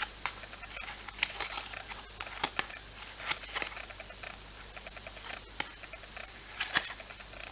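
Match Attax trading cards being handled during a pack opening: an irregular run of light clicks, flicks and rustles, with a sharper snap about two thirds of the way through.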